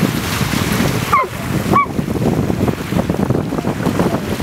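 Small waves washing on a pebble beach, with wind buffeting the microphone. Two short, high calls fall in pitch, about a second in and again just under a second later.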